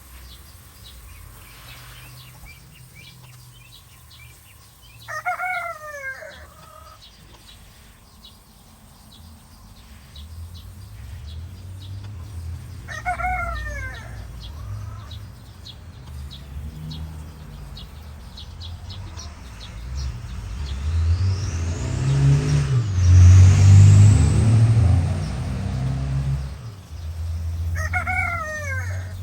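Rooster crowing three times, each crow a short call that falls in pitch at the end. Through the middle a low rumble builds, swells to its loudest about three quarters of the way in, then eases off.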